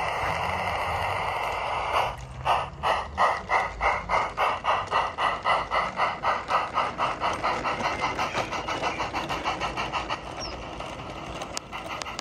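Sound unit of a battery-powered, radio-controlled 32mm gauge model of the Ffestiniog 0-4-0 steam locomotive 'Prince': a steady hiss, then about two seconds in, simulated exhaust chuffs at about four a second as the locomotive pulls away with its train, growing fainter towards the end.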